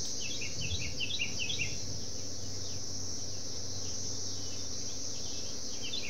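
Chorus of Brood X periodical cicadas: males singing their mating call, a steady, loud, shrill drone. A quick run of short, lower chirps sounds near the start.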